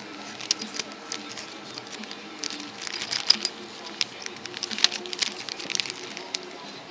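A small clear plastic bag crinkling as it is handled, with irregular sharp clicks and rustles that come thickest in two clusters, about three and five seconds in.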